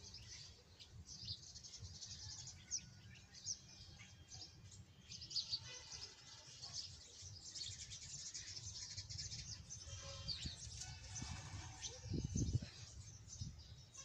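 A flock of small birds chirping and calling, many short high chirps overlapping throughout. A low rumble runs underneath, with a louder low thump about twelve seconds in.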